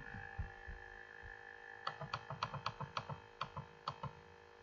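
Computer mouse clicking rapidly, a dozen or so quick clicks over about two seconds, over a faint steady electrical hum.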